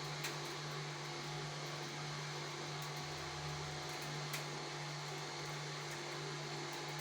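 Electric cotton candy machine running during a test, its spinning head motor giving a steady hum with a few faint ticks.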